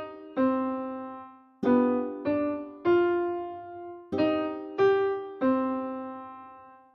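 A short melody played one note at a time on a piano, in phrases of about three notes, each note struck and left to fade; the last note rings out near the end. It is an ear-training melody for judging major or minor tonality.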